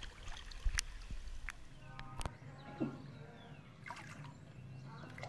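Pool water lapping and splashing against a camera held at the surface, with sharp little clicks and splashes. About two seconds in it gives way to a quieter, steady low hum with a few faint brief sounds.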